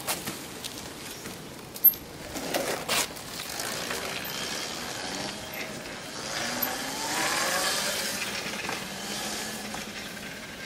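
Zero XU electric motorcycle pulling away: two sharp clicks in the first two seconds, then a soft hiss with a faint electric-motor whine rising in pitch, swelling about seven to eight seconds in and fading. It is very quiet for a motorcycle.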